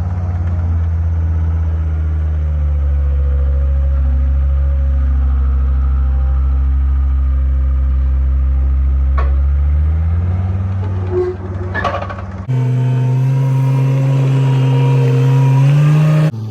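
Engine of the machine handling the lumber lifts, running steadily and then revving up about ten seconds in. Near the end it cuts abruptly to a higher engine note that climbs slowly.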